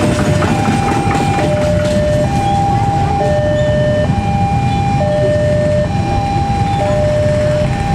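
Railway level-crossing warning alarm sounding a steady two-tone pattern, a higher and a lower tone alternating about once a second. Under it is the low rumble of a passenger train running over the rails past the crossing.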